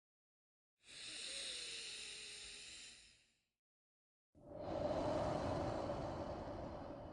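Slow, paced human breathing for a relaxation breathing exercise: a hissy breath of about two and a half seconds, a pause of about a second, then a louder, fuller breath of about three seconds.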